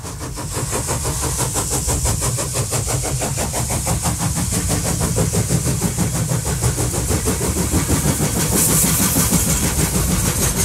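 HO-scale model train running along the track: a steady electric-motor whir and wheel rattle with fast, even clicking, swelling over the first second and then holding.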